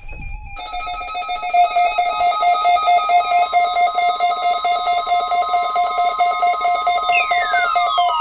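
Loud electronic alert tone: several steady pitches sounding together with a fast, buzzy flutter. Near the end a falling sweep glides down through them.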